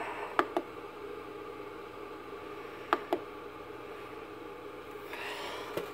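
Push-button control knob on a Monoprice Select Mini V2 3D printer clicking in two quick pairs, each a press and release: one pair under a second in, another about three seconds in. A steady hiss and hum runs underneath.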